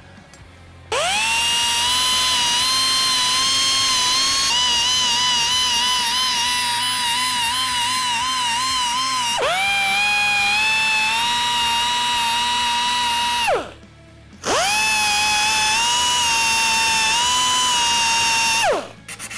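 Electric belt file (narrow-belt sander) whining as it sands a brazed joint on a steel bicycle frame tube. It spins up about a second in and its pitch warbles as the belt bears on the work. The pitch dips and picks up again near the middle. It stops about two-thirds through, starts again a second later, and stops just before the end.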